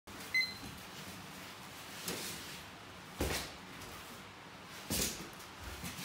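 A short high electronic beep right at the start, then foam pool noodles swung and blocked, three soft hits a second or two apart.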